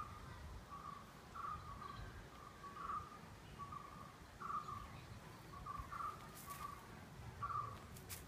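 A bird calling over and over, a short phrase repeated about every second and a half, over a low background rumble. A couple of faint clicks come near the end.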